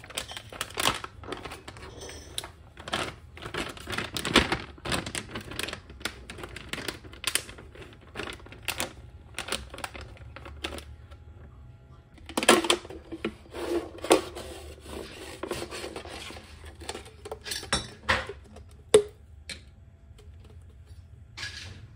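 A plastic zipper food pouch crinkling and rustling as it is handled, with many small clicks and a few louder knocks.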